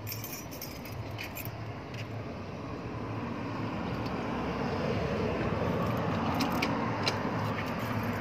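A key ring jingling and a few light metallic clicks as a key goes into a metal gate's cylinder lock and is turned, over a steady rushing of road traffic that swells louder in the second half.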